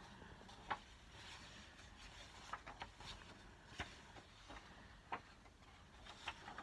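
Faint rustling and a few soft clicks of magazine pages being turned by hand.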